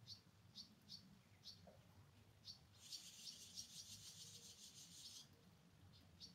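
A faint small bird chirping: short high chirps repeating about twice a second, broken about three seconds in by a fast buzzy trill lasting a couple of seconds, then the chirps resume.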